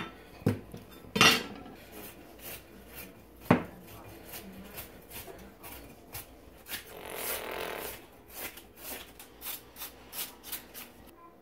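Kitchen knife shredding a cabbage on a wooden cutting board: three loud knocks in the first few seconds, then a long run of quick cuts, the blade tapping the board about three times a second.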